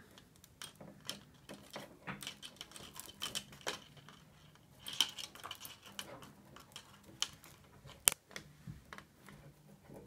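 Scattered small clicks and rustles of plastic fiber-optic buffer tubes and the cable's strength member being handled and pulled apart by hand, with a sharper click about five seconds in and the loudest one about eight seconds in.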